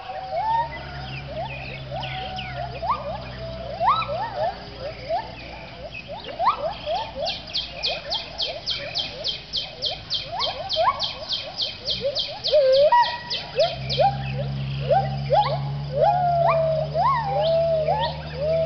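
Gibbons calling in a dawn chorus: many overlapping rising whoops, repeated throughout. A high rapid pulsing call, about five pulses a second, runs for several seconds in the middle, and a low steady hum is there at the start and again near the end.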